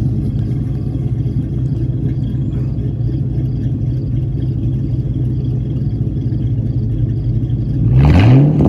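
2000 Ford Mustang GT's 4.6-litre V8 with a muffler delete (straight pipe behind the stock catalytic converters, 3-inch MagnaFlow tips) idling steadily, then revved once near the end, the pitch rising and falling back.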